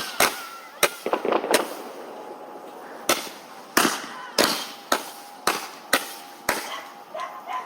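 Small consumer firework (the Pearl Flower) going off in a string of sharp pops, about ten of them, roughly one every half second to second, ending a little before the close.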